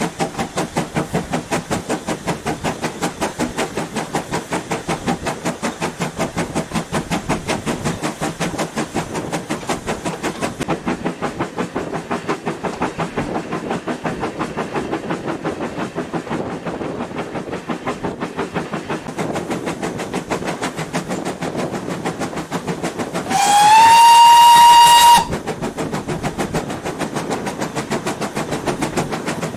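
Great Western Railway steam locomotive working under steam, its exhaust beating in a fast, even rhythm. Near the end the whistle sounds once for about two seconds, sliding up slightly in pitch as it opens and then holding steady.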